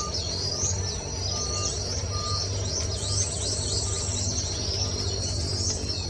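A bird chirping over and over in quick high rising notes, a few a second, over soft background music.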